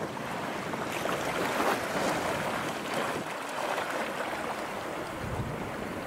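Small waves of a nearly calm sea washing steadily onto a sandy shore, mixed with wind on the microphone, which gives a low rumble about five seconds in.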